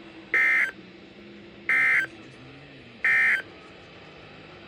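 Emergency Alert System SAME end-of-message data bursts from a NOAA Weather Radio broadcast: three identical short, buzzy electronic squawks, about a second and a third apart, marking the end of the warning.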